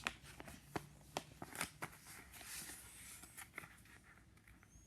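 A sheet of printer paper being folded and creased by hand: a scattering of short crisp crackles and taps, with a soft rustle about halfway through.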